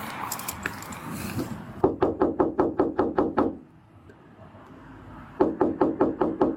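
Rapid knocking, about six knocks a second, in two bursts with a short pause between.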